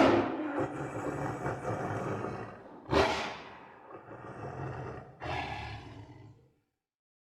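Three loud, rough animal calls, each starting abruptly and fading away, over a low rumbling undertone; the last dies out about six seconds in.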